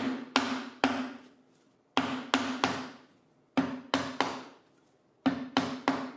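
Mallet striking a bench chisel, chopping out the waste between dovetails at the baseline: sharp wooden knocks in quick groups of three or four, about a dozen blows in all.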